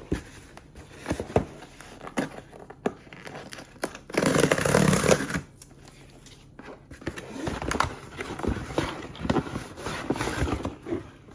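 Packaging being handled and opened: cardboard and plastic scraping, rustling and knocking, with one louder noisy rip-like stretch lasting about a second, about four seconds in.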